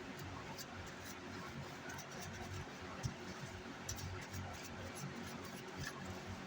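Faint scattered ticks and scratches of multimeter probes against resistor leads on an amplifier circuit board, over a low steady hum.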